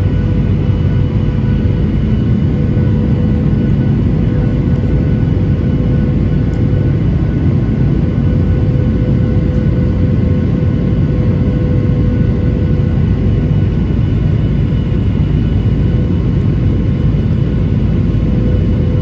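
Boeing 737-900ER in flight, heard from inside the cabin: a constant low rush of airflow and engine noise with several steady whine tones above it, unchanging throughout.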